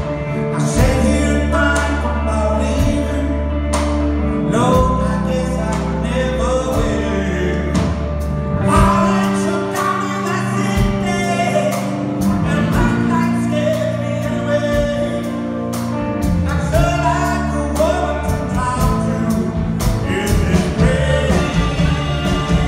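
A live band playing a song: saxophone, electric guitars, keyboard and drums, with a lead melody line over a steady bass.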